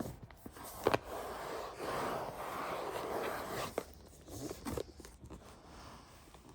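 Packaging being handled during an unboxing: a few sharp knocks and taps, with about two seconds of rustling or sliding in the middle.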